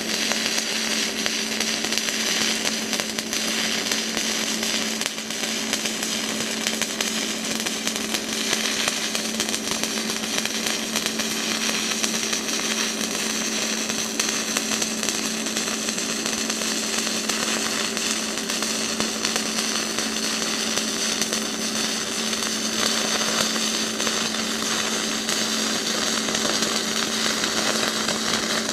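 Stick (SMAW) welding arc burning steadily as a 7018 electrode runs a fillet weld on 1/8-inch 1018 mild steel, fed DC electrode-positive by an AHP Alphatig 200X inverter. It is a continuous crackle and hiss with a steady low hum underneath.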